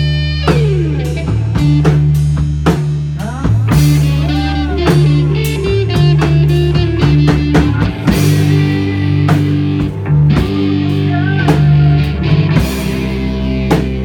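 Rock band playing loud: electric guitar through an amplifier, electric bass and drum kit, with a heavy bass line changing note every second or so under frequent drum hits.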